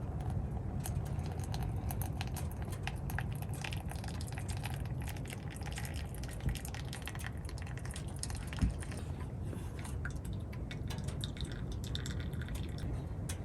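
Rain pattering on a tent: many irregular drops ticking over a steady low rumble, with two slightly louder knocks in the middle.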